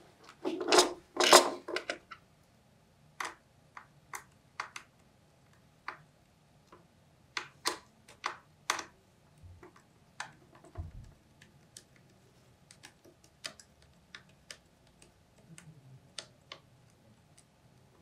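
Light clicks and taps of a small precision screwdriver and tools handled on a laptop's open plastic-and-metal chassis, with a louder clatter of tool handling in the first two seconds, then scattered sharp ticks.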